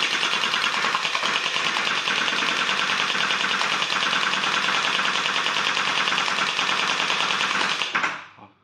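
Electric gel ball blaster firing on full auto: a fast, steady rattle of shots from its motor-driven gearbox, which stops abruptly near the end.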